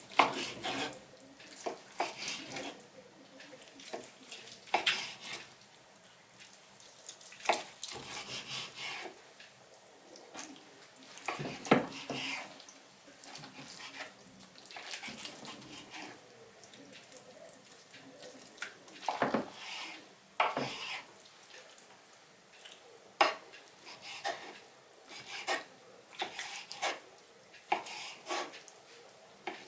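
Kitchen work: water splashing and running, with pots, dishes and utensils knocking and clinking at irregular moments.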